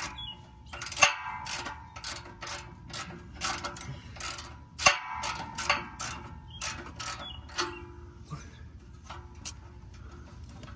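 Hand ratchet with a 15 mm socket clicking on its back-strokes while loosening the nut of a Jeep JL's exhaust muffler clamp. The clicks come about one or two a second and thin out and grow fainter in the second half.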